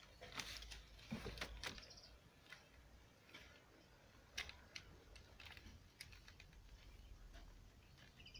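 Faint, scattered light clicks and rustles of kittens' paws and claws scrabbling on glossy paper leaflets in a cardboard box as they play-fight.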